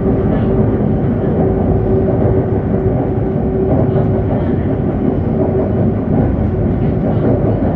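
Steady running rumble inside a moving light rail tram car, with a steady hum that fades about five seconds in.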